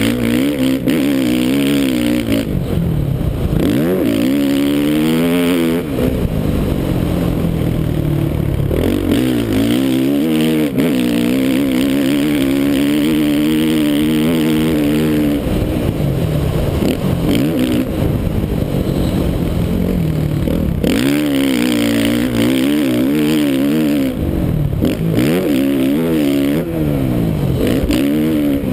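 2013 Suzuki RM-Z450 motocross bike's four-stroke single-cylinder engine ridden hard, its pitch climbing as the throttle is opened and dropping back again and again as the rider shifts and backs off.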